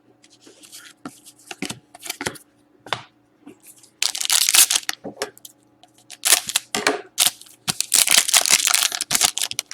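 Upper Deck Artifacts hockey card pack wrapper being handled, torn open and crinkled: a few light clicks and rustles, then from about four seconds in three loud stretches of tearing and crinkling.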